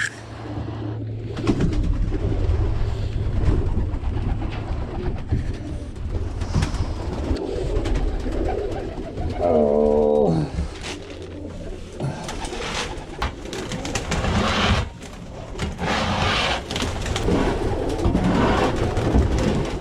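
Domestic pigeons cooing in a coop, with repeated scraping and shuffling of a shovel on the coop floor.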